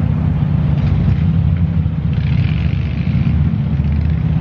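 A steady low outdoor rumble, without any other clear sound.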